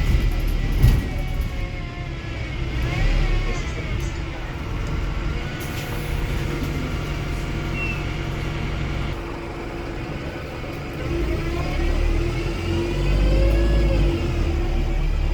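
Wrightbus StreetDeck hybrid double-decker bus running, its Mercedes-Benz OM934 four-cylinder diesel giving a steady low rumble. Whines from the drivetrain rise and fall in pitch, and there is a short knock about a second in.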